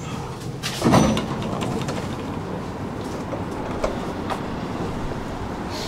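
Tram passenger doors working about a second in, with a loud whoosh that falls in pitch, followed by the steady hum of the tram standing at the stop, with a few faint clicks.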